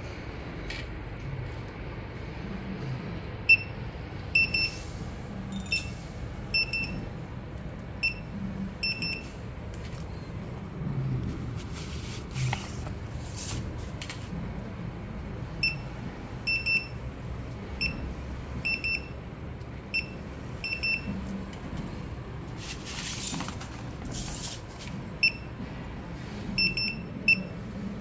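Handheld inkjet coding printer beeping: short high-pitched beeps, often two or three close together, repeating about once a second, with a pause of a few seconds partway through. A few brief handling noises are heard alongside.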